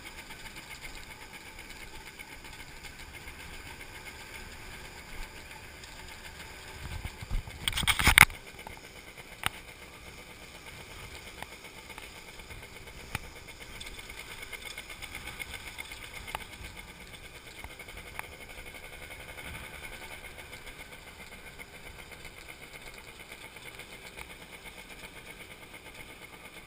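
Motorbike running steadily along a rough dirt road, engine and road noise throughout, with scattered knocks and rattles from bumps. A loud cluster of thumps comes about seven to eight seconds in.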